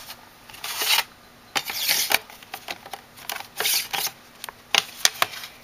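Plastic makeup palettes handled and slid out of a stacked acrylic organizer: a few sharp clicks and taps mixed with short sliding, scraping swishes.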